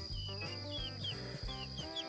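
Background music of held notes changing every fraction of a second, with a steady thin high whine and short high falling chirps scattered over it, several a second.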